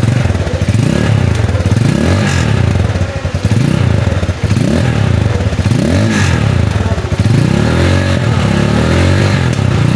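Factory FK250 motorcycle's 250 cc engine being revved with repeated throttle blips, about six times, each rise in engine pitch falling back toward idle.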